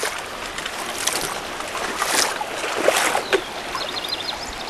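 Shallow river water rushing over rocks, a steady noise, with a few brief louder rustles or splashes about one, two and three seconds in.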